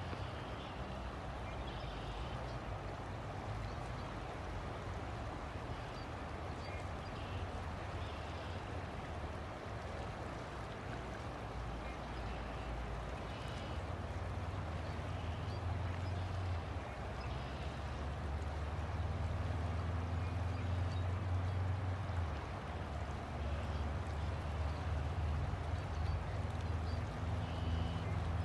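River water flowing steadily, an even rushing sound, with a low rumble underneath that grows louder in the second half.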